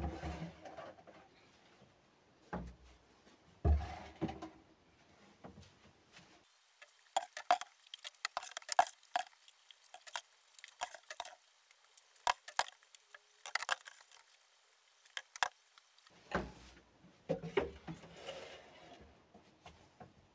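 Plastic bottles of cleaning products being set down one after another on a cupboard shelf: irregular knocks and clicks, with a couple of heavier thuds in the first few seconds.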